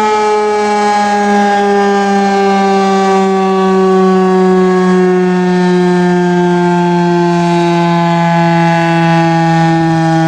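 Federal Signal STH-10 electromechanical outdoor warning siren sounding its steady alert tone on test, loud and continuous, its pitch slowly sinking.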